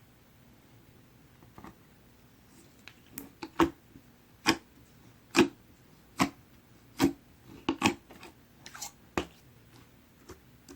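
Banana-yellow pearl slime being pressed and worked by hand, giving a run of sharp sticky pops, roughly one a second, from about three seconds in until about nine seconds.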